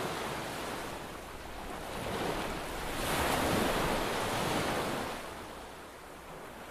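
A rushing noise like surf, with no distinct tones. It swells about three seconds in and fades toward the end.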